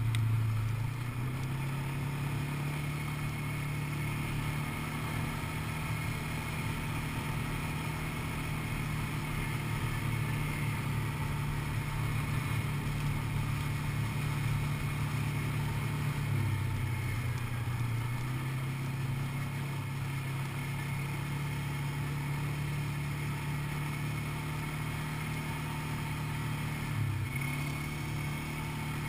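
Quad bike (ATV) engine running steadily, heard from on board while riding, its pitch dipping briefly a few times as the throttle eases and picks up again.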